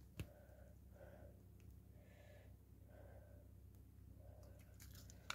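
Near silence: room tone with a low hum, a faint click just after the start and another near the end.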